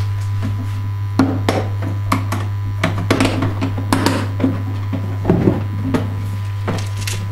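A steady low electric hum cuts in suddenly as the light comes on. Over it, a plastic toolbox and a small plastic case are handled, with scattered knocks and clicks as the case is lifted off and the toolbox latches are worked.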